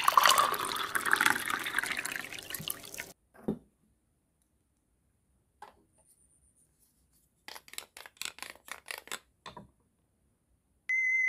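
Red liquid poured from a small glass jug into a small plastic cup, a steady splashing pour for about three seconds that stops abruptly, followed by a single light knock. Later comes a quick run of light clicks, and a steady high beep starts near the end.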